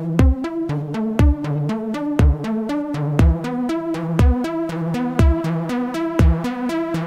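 Electronic background music with a drum machine: a deep kick that drops in pitch about once a second, quick clicks between the kicks, and a short synth figure repeating over them.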